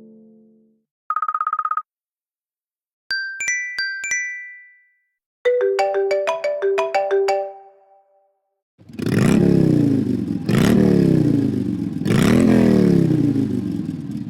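iPadOS 26 ringtones and alert tones played one after another. A fading tone ends early on, followed by a brief buzzy beep, a few high chime notes, a quick run of plucked, mallet-like notes, and a noisy tone that swoops down and back up three times.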